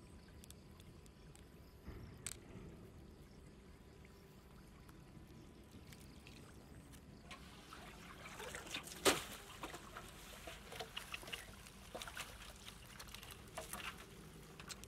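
Water trickling and splashing as a mesh net trap full of small fish is handled in shallow floodwater and lifted into a metal basin. The splashing turns busy about seven seconds in, with many short splashes and clicks and one sharp loud hit about nine seconds in.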